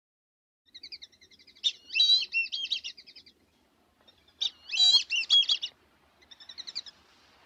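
A songbird singing three phrases of fast, warbling song with short pauses between, the first starting about a second in.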